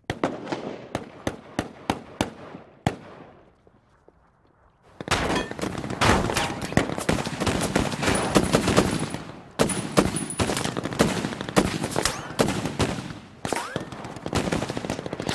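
Gunfire: a string of single rifle shots over the first three seconds, a short pause, then heavy, continuous gunfire with machine-gun fire and many rapid shots.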